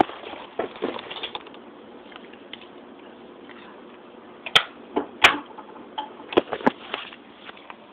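A handful of sharp clicks and taps over a steady low hiss. The loudest come about four and a half and five seconds in, then a pair at about six and a half seconds.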